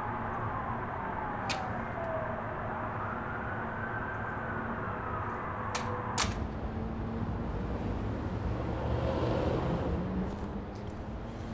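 Emergency-vehicle siren wailing slowly down, up and down again over a steady urban hum, with a few sharp clicks; a rush of noise swells and fades near the end.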